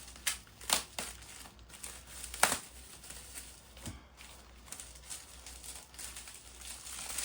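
Packaging being crinkled and rustled as a product is unwrapped, with several sharp crackles; the loudest comes about two and a half seconds in.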